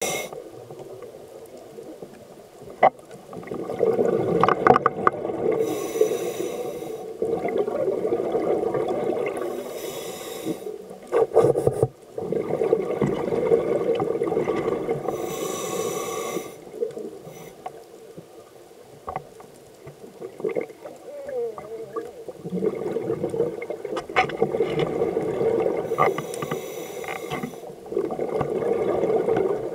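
Scuba diving heard underwater: a muffled, gurgling rumble from the diver's regulator and water around the camera, with a hissing rush of exhaled bubbles every few seconds.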